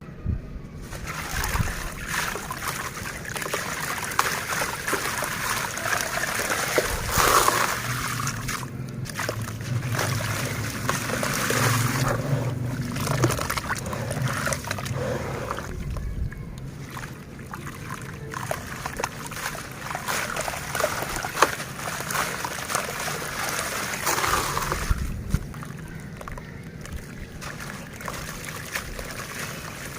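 A whole lump of red dirt crumbling in plenty of water, with many small crackles, splashes and sloshing as it breaks apart.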